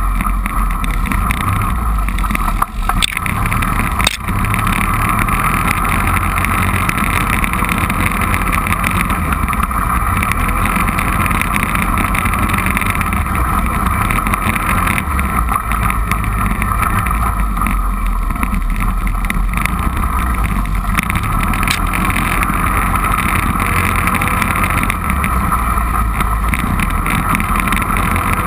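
Four-wheeler (ATV) engine running steadily under way on a rough trail, with two brief knocks about three and four seconds in.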